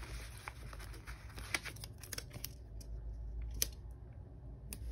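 Soft paper handling as a box sticker is peeled from its sticker sheet and pressed onto a planner page: faint rustling with a few sharp ticks.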